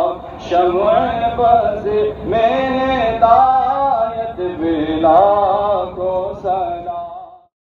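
A man chanting a naat, an Urdu devotional song in praise of the Prophet, in long melodic phrases with held, wavering notes; it breaks off just before the end.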